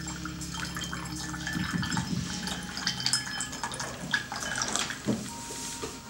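Tea poured in a thin stream from a small Qinzhou ceramic teapot into a glass pitcher, splashing and trickling into the liquid already in the glass. The pour trails off near the end.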